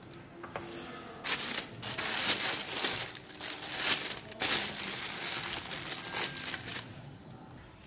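Disposable plastic piping bag crinkling and rustling in uneven bursts as it is handled and squeezed while being filled with frosting.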